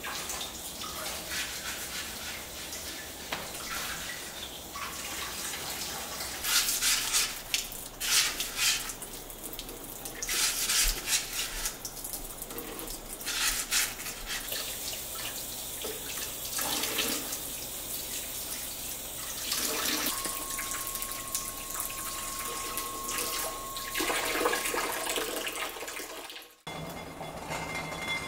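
Running tap water splashing in a kitchen sink as fresh eggs are scrubbed clean with a sponge over a basin, with louder bursts of splashing and scrubbing now and then. It cuts off suddenly near the end.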